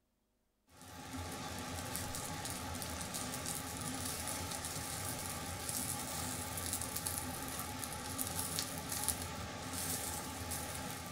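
Salt-crusted, skewered sweetfish (ayu) sizzling and crackling as they grill on a wire mesh rack. The sound comes in suddenly under a second in and then runs steadily with a dense crackle.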